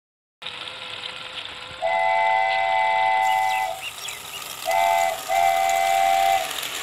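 Multi-tone train horn sounding a steady chord in three blasts: a long one about two seconds in, then a short one and a longer one, over a steady hiss.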